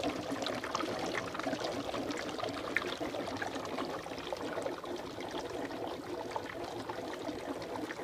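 Homemade HHO (oxyhydrogen) generator running, its potassium-hydroxide electrolyte cell and bubbler bubbling hard as they make gas: a steady, dense crackle of bubbles.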